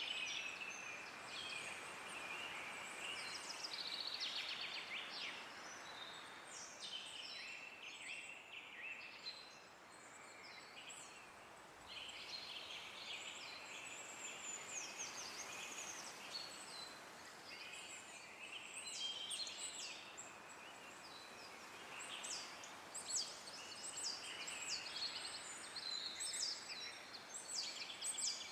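Songbirds chirping and trilling over one another, many short calls throughout, over a soft steady rush of wind through the trees.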